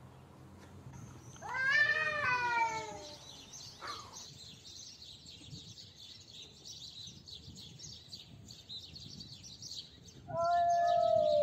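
Cats yowling at each other in a standoff. A long wavering yowl comes about two seconds in, then a short cry around four seconds, and a loud yowl falling in pitch near the end.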